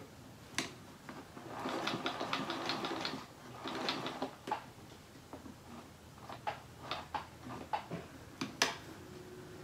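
Sewing machine stitching through a thick quilt in two short bursts of rapid stitches, about eight a second, then a scatter of single stitches and clicks as the quilt is eased along.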